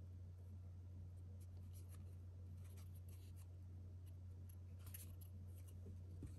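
Faint rustle and sliding of trading cards being handled, a few brief scratchy strokes over a steady low hum.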